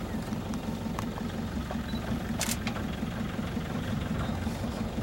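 Engine of an open safari game-drive vehicle running at idle with a steady low rumble.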